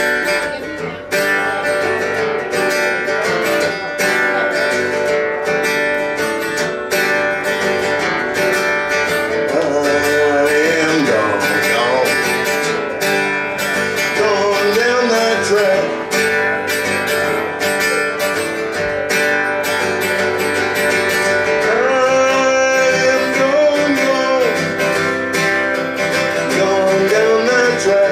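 Live acoustic guitar strumming a song's opening, with a melody line that bends in pitch laid over it about ten seconds in and again past twenty seconds.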